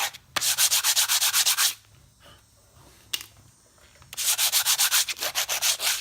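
Motorcycle brake pad's edge being chamfered by hand with an abrasive, two runs of quick back-and-forth scraping strokes, about nine a second, with a pause of a couple of seconds between them. The edge is broken off to cure a brake squeal.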